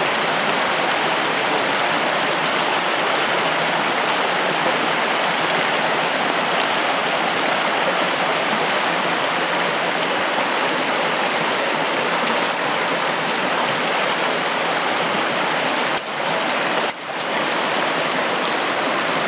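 Shallow, rocky mountain creek rushing over stones in a steady, loud flow of water.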